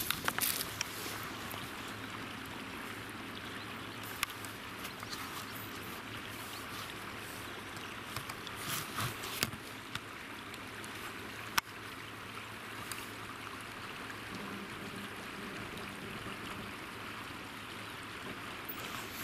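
River water rushing steadily, with a few brief rustles and one sharp click a little past the middle.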